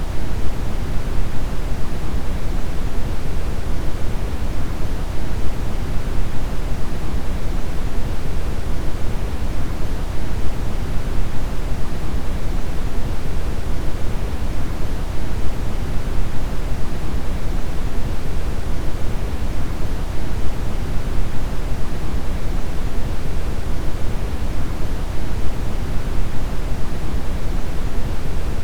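Deep brown noise: a steady, even rumbling hiss weighted heavily toward the low end, with no events or changes.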